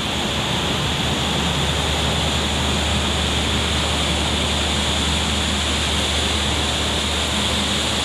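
Steady rushing of splashing water from a large outdoor fountain, over a steady low rumble.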